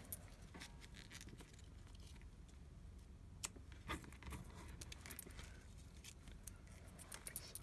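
Faint rustling and scattered light ticks of small pieces of card being handled and pressed together on a tabletop.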